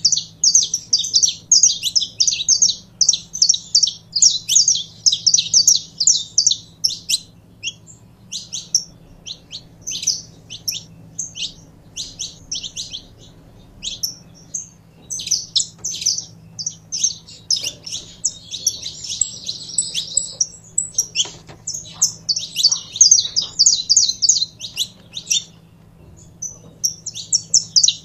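Saffron finch singing: fast runs of high chirps. The runs thin out to scattered notes for a while midway and pick up again, with a buzzier trill in the middle of the second run.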